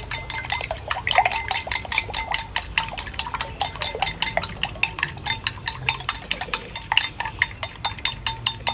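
Eggs being whisked with chopsticks in a ceramic bowl: a fast, steady clatter of the chopsticks striking the bowl, about six strikes a second, with a light ring from the bowl.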